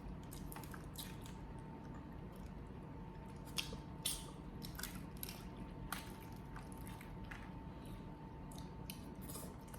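Close-up eating sounds of boiled crawfish: wet smacking and sucking with scattered short clicks and cracks of shell.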